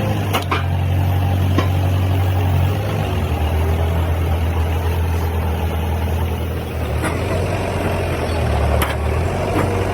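A large engine running at a steady idle, a deep, even hum, with a few sharp clicks or knocks: near the start and twice in the second half.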